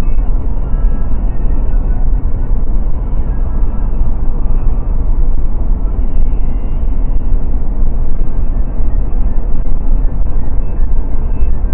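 Steady road and wind noise in a Mercedes-Benz car's cabin at highway speed, dominated by a loud, deep rumble.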